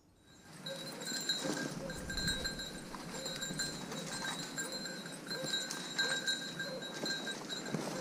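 A small dog bell on a bird dog's collar jingling on and off, over rustling and steps through dry brush.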